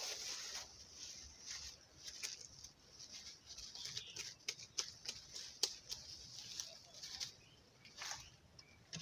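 Thin clear plastic bag rustling and crinkling in short, scattered bursts as it is twisted closed and tied by hand.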